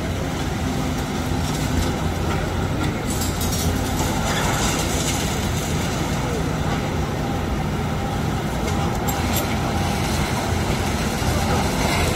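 Diesel engines of heavy tracked hydraulic excavators running steadily in a continuous low rumble, with a knock now and then.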